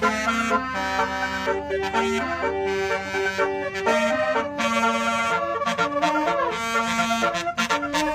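Basuri musical air horn playing a melody: several reedy horn tones sound together, stepping from one held note to the next, with a short break near the end.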